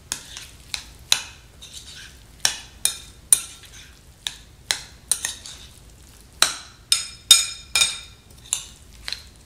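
A spoon stirring and folding guacamole in a glass mixing bowl, clinking against the glass about twice a second, often in quick runs of three.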